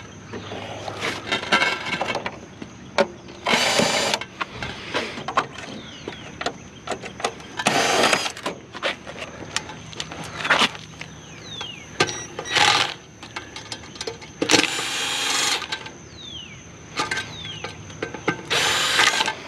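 Drill running screws out in about six short bursts, each a second or less, with clicks and clatter of handling in between.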